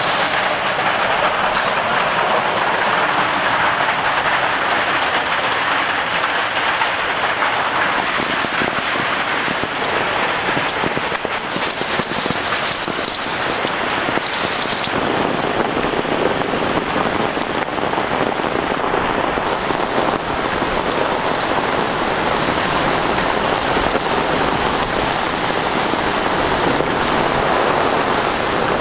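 Hail and torrential rain pelting the ground and roofs in a dense, steady hiss that does not let up.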